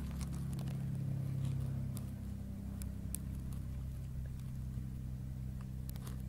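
Light single-engine propeller plane's piston engine running with a steady low drone, a little louder a second or two in.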